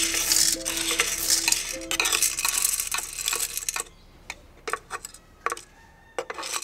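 Freshly roasted coffee beans pouring out of a small home drum roaster into a perforated aluminium cooling tray: a dense rattle of beans on metal that thins to scattered single clicks about four seconds in.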